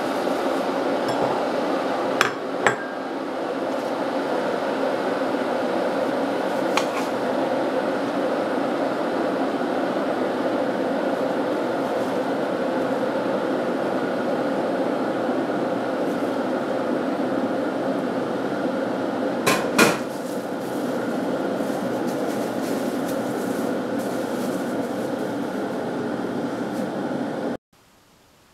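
A steady machine-like hum with a few sharp clicks and knocks, about four in all; one knock near 20 seconds is the loudest. The hum cuts off suddenly near the end.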